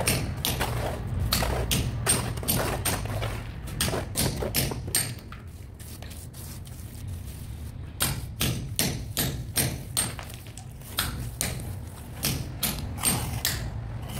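Steel trowel knocking and scraping as cement mortar is tipped out of a bucket and spread over a sand bed: an irregular run of sharp taps, some with a short metallic ring, with a quieter lull in the middle.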